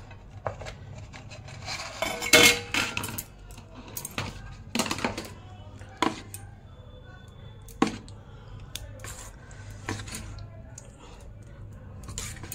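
A steel spoon stirring thick flour-and-semolina batter in a stainless steel bowl, clinking and scraping against the sides at irregular intervals, loudest a little over two seconds in.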